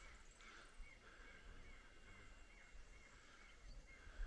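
Quiet outdoor ambience with a faint animal chirp repeating about twice a second.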